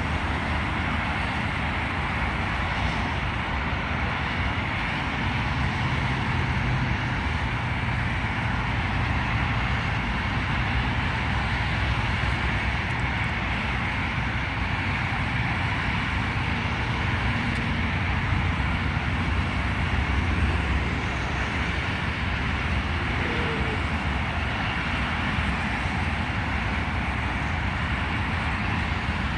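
Steady road traffic noise from cars passing on a multi-lane road: a continuous hum of engines and tyres, swelling a little about two-thirds of the way through.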